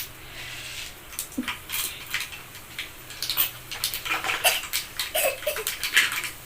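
Metal kitchen utensils clinking and scraping against cookware in irregular short knocks.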